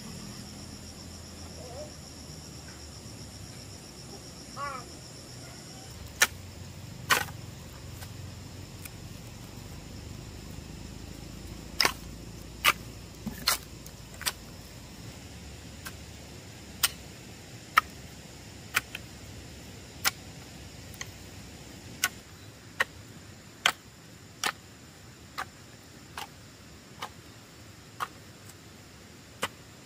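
A series of sharp clicks: two at first, then from about halfway through roughly one a second. Under them is a low steady hiss.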